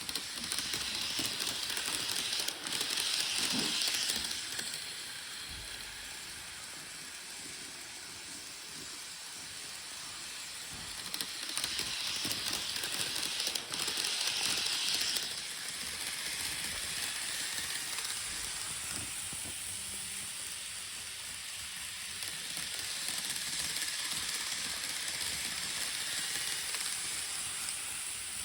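Model trains running on the layout's track, a steady rolling hiss of wheels and motors that swells louder twice as a train passes close, with a gentler rise near the end.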